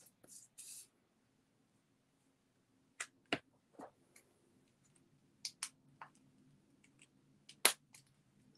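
Stampin' Blends alcohol markers being handled: a brief soft rustle at the start, then a scattered series of short, sharp clicks and taps as the markers are capped and set down while she swaps to another marker. A faint steady low hum runs underneath.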